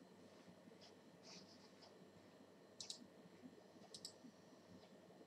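Faint computer mouse clicks over quiet room tone: a few light clicks early on, then two quick double clicks, one just under 3 seconds in and another about a second later.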